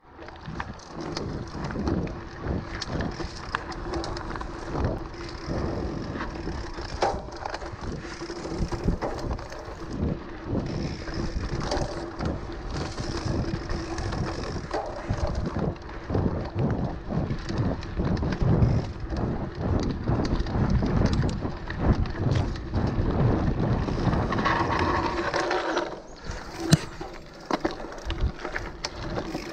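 Cannondale mountain bike ridden over a rooty dirt trail: a continuous rumble of tyres on dirt with many quick knocks and rattles from the bike jolting over roots and bumps, and wind on the microphone. Near the end it drops quieter, with a few sharp clicks.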